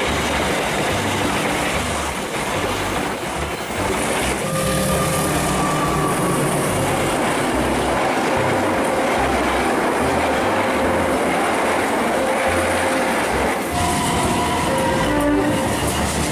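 Passenger train running close past, a loud steady rush of steel wheels on the rails that holds without a break.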